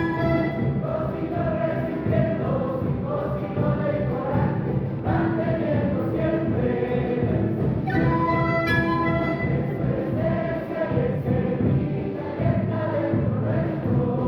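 A live orchestra of Andean and Latin American instruments playing a full, sustained passage with a choir-like sound.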